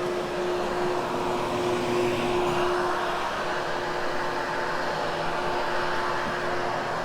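Hoover HushTone vacuum cleaner running steadily as it is pushed over carpet, a constant rushing of air with a steady hum through it.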